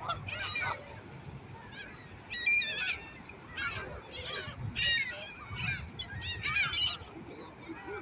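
A flock of gulls and Canada geese calling: many short calls, one after another and sometimes overlapping.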